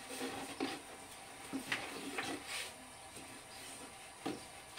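Thin wooden rolling pin rolling flatbread dough on a round wooden board, with irregular light wooden knocks and rubbing as the pin is pushed back and forth.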